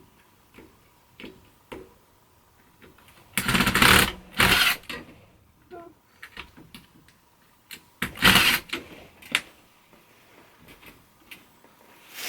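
A power drill running in three short bursts, about a second in length or less, as the closet shelf and hanging bar are screwed in place, with light clicks and knocks between.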